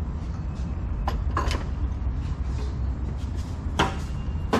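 A few sharp knocks and clunks of a marine exhaust manifold being handled and set down into a bench vise, over a steady low hum.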